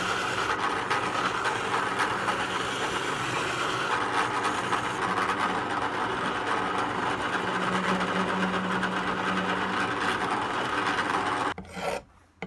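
Drill press running, its spinning bit rasping steadily against the plastic hub of a hammer drill's armature fan as the centre hole is bored out slightly, over a steady motor hum. It stops about a second before the end.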